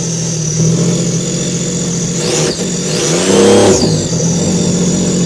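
A steady engine drone that revs up and back down about three seconds in, used as the motor sound for a toy boat.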